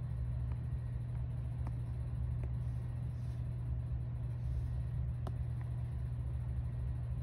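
Steady low hum of background room noise, with a few faint light taps of a stylus tip on a tablet's glass screen, the clearest about five seconds in.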